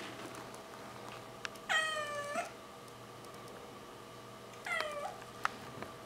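Bengal kitten meowing twice: a longer high meow about two seconds in and a shorter one about three seconds later, each dropping in pitch at its end. A single sharp click follows just after the second meow.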